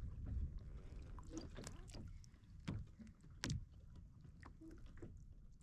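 Sea-kayak ambience: a low wind rumble on the microphone and water lapping at the kayak hull, with several short knocks and taps, the loudest about a third and two thirds of the way through.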